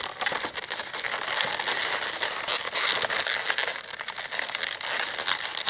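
Inflated latex twisting balloons rubbing and crackling against each other as they are twisted and tied into a tight cluster.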